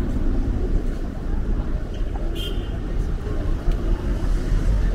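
City street noise: a steady low rumble of traffic, with a brief high-pitched squeal about halfway through.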